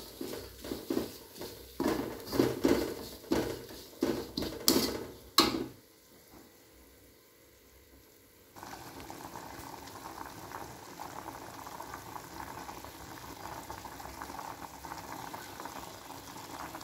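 Metal spatula clanking and scraping against an aluminium wok, about two strikes a second, while stir-frying ground chili spice paste. After a short lull, a pot of liquid at a rolling boil bubbles steadily from about halfway through to the end.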